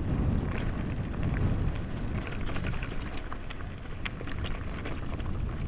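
Mountain bike rolling over a rough dirt track: a steady low wind rumble on the microphone with scattered crunches and small rattles from the tyres and bike.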